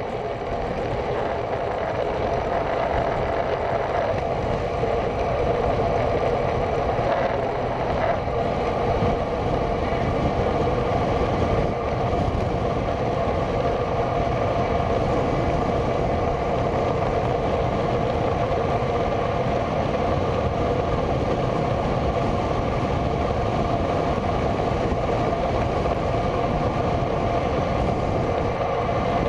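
Steady rush of wind and tyre noise on a bicycle-mounted camera riding at speed, with a constant hum and no change throughout.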